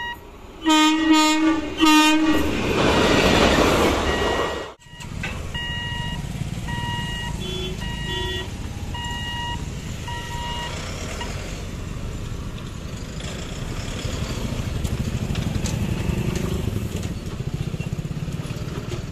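Train horn sounds three loud blasts, then the train rushes past. After an abrupt cut, a level-crossing warning beeps about once a second, followed by the steady low rumble of motorbikes, auto-rickshaws and a truck driving over the crossing.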